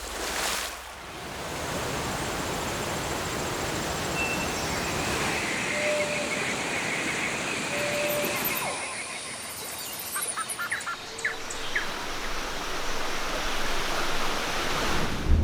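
Steady rushing noise of water, like a waterfall or stream, with a few short high calls and some clicks over it part-way through.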